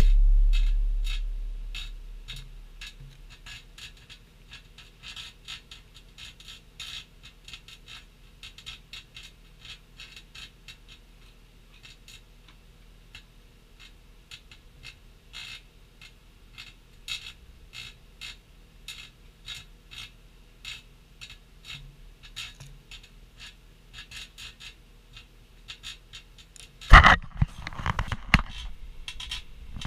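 Microwave oven running with pewter melting inside: a faint steady hum under many irregular small crackles and ticks. A loud low hum fades out over the first few seconds, and a sudden loud noise breaks in near the end.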